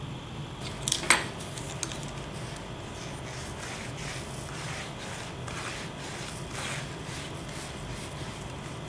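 A couple of sharp clicks about a second in, then a sponge paint roller rolling back and forth over the canvas. Its soft, repeated swishing comes from wet black acrylic paint being spread over the surface.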